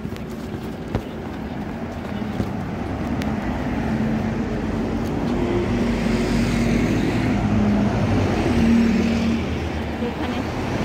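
Red double-decker bus approaching and passing close by, its engine hum growing louder as it draws level and loudest about eight seconds in, over street traffic noise.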